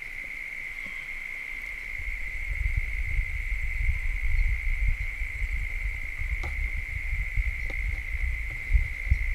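Wind buffeting the microphone in low, uneven gusts, with a steady high-pitched whine held underneath and a couple of faint ticks.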